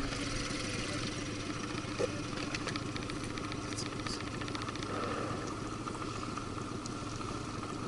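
Small outboard motor on an inflatable boat idling steadily, a constant even hum.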